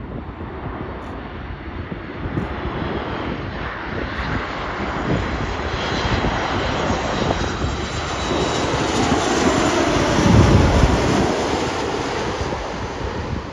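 Boeing 737 MAX 8's CFM LEAP-1B turbofan engines on a landing approach. The jet noise grows as the airliner comes in low, is loudest about ten seconds in as it passes, then begins to fade.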